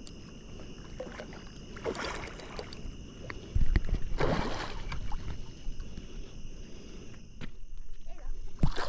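Water splashing in two short surges, about two and four seconds in, as a hooked gar thrashes at the surface during the fight, with a low thump between them. Insects chirr steadily underneath.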